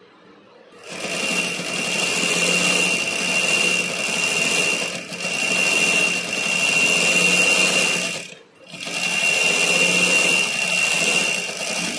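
Motor-driven domestic sewing machine, worked by an electric foot pedal, stitching at a steady speed with a constant high motor whine. It starts about a second in, stops briefly about two-thirds of the way through and runs again, sewing a double stitch over the seam to lock it.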